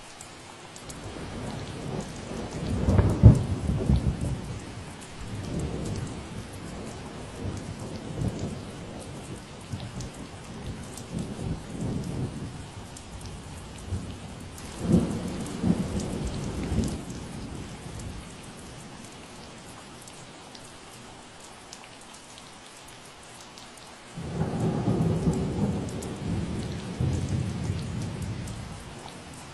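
Steady rain falling, with rolling thunder rumbling over it in several waves. The loudest peal comes about three seconds in, another rolls around the middle, and a fresh rumble breaks in sharply near the end.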